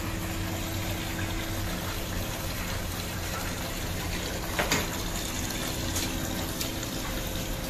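Tap water running steadily into a stainless-steel sink, with one short knock about halfway through.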